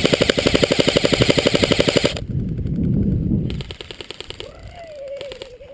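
Airsoft rifle firing a fully automatic burst: a rapid, even clatter of shots lasting about two seconds, then stopping abruptly.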